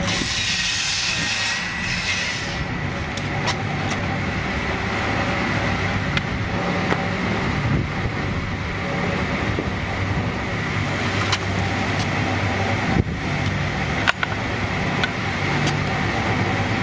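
Log-feeding chain conveyor and sawing machinery of a wood log segment-sawing line running with a steady low hum and a faint steady whine. A high hiss sounds over the first couple of seconds, and a few sharp knocks come near the end.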